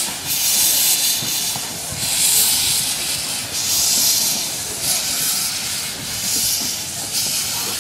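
Narrow-gauge steam locomotives moving slowly with steam hissing from the cylinder drain cocks. The hiss comes in surges about once a second, and no whistle sounds.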